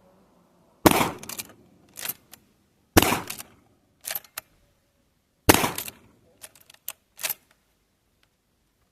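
Three shots from a GForce Arms LVR410 lever-action .410 shotgun firing number 7 birdshot, about two to two and a half seconds apart. Each shot is followed by a few quick metallic clicks as the lever is worked to eject the shell and chamber the next.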